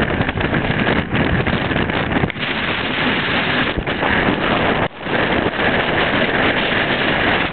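Strong gusting wind buffeting the microphone: a loud, continuous rushing with a brief drop about five seconds in.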